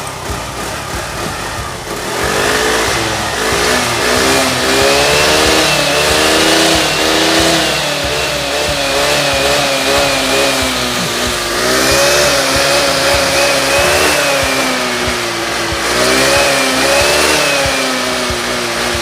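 Rusi Rapid 150 motorcycle engine revving, its pitch rising and falling again and again. It gets louder about two seconds in.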